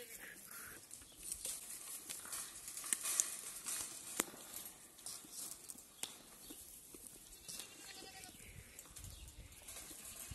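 Goat chewing and stripping willow twigs close up: irregular crunches and sharp snaps of twigs, with leaves rustling.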